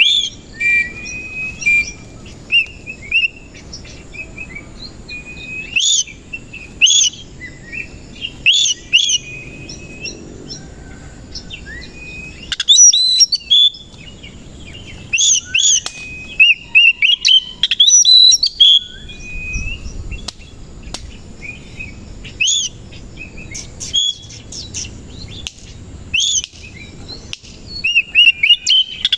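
Oriental magpie-robin (kacer) singing loud, varied phrases of clear whistles and sharp upswept notes, coming in bursts with short pauses between them.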